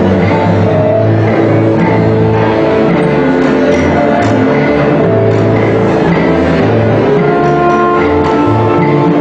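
A danzonera orchestra playing a danzón: held melody notes over a steady, repeating bass line.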